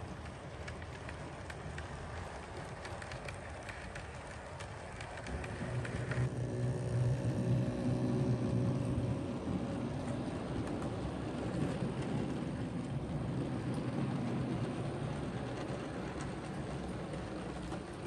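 OO gauge model trains running on the layout track: a steady rumble of wheels on rails. It gets louder about six seconds in as a black LNER steam-outline model locomotive hauling wagons passes close, with a steady hum that fades after a few seconds.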